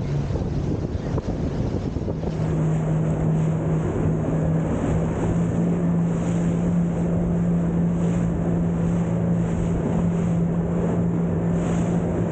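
Personal watercraft engine running at speed, a steady drone over rushing water and wind on the microphone. About two seconds in, the engine note rises slightly and grows louder, then holds steady.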